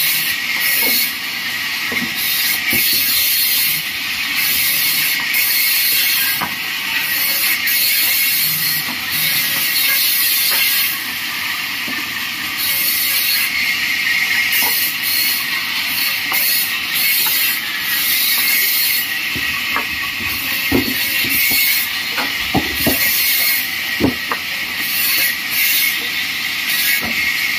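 Vertical bandsaw ripping wooden planks: a steady high hiss of the blade in the wood that swells and eases as each board is fed through. A few sharp knocks come about two thirds of the way in.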